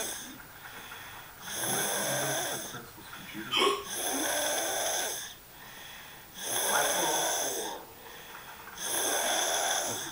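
Sleeper snoring: a snore about every two and a half seconds, four in all, each lasting over a second, with quieter breathing between. A brief sharper sound, the loudest moment, comes just before the second snore.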